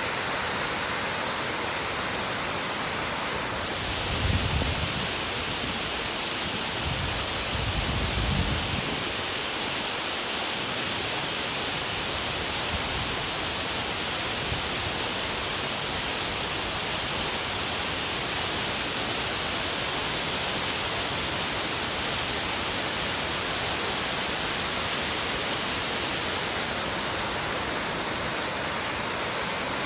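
Steady, full rush of a waterfall, its tone shifting slightly about three seconds in and again near the end, with two brief low rumbles about four and eight seconds in.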